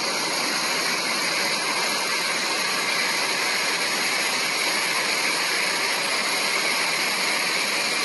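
Steady rush of wind and tyre noise inside the cabin of a Rimac Nevera, a four-motor electric hypercar, accelerating flat out at over 230 km/h.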